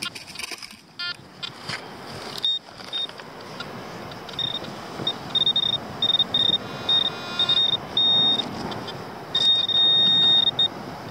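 Handheld pinpointer beeping on one high pitch as it is worked through beach sand toward a buried coin, its beeps coming faster and closing into a steady tone near the end when it is right on the coin. Scraping of hands digging in the sand runs underneath.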